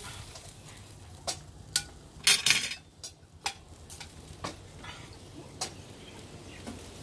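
Scattered clinks and clatters of utensils and dishes during a meal, loudest in a short cluster a little past two seconds in, over a faint steady hiss.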